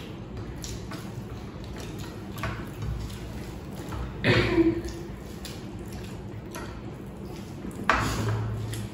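People eating rice and egg curry with their hands: soft squishing of fingers mixing and scooping rice on plates, with small scattered clicks. Two brief voice sounds break in, about four seconds in and near the end.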